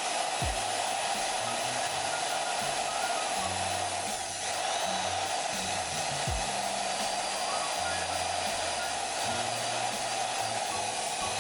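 Old electric drill running steadily as it bores a hole through a car's interior trim panel, with the low bass notes of background music underneath.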